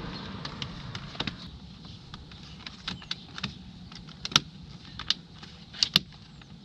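Scattered clicks and light snaps as an embossed Euro licence plate is pressed and worked into its plate bracket on a car's front bumper, the sharpest about four and six seconds in.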